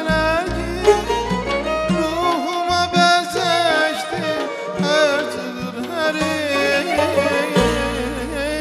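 A man singing a long, heavily ornamented melodic line with quick trills and wavering pitch, accompanied by hand-struck frame drum beats and sustained string-instrument tones.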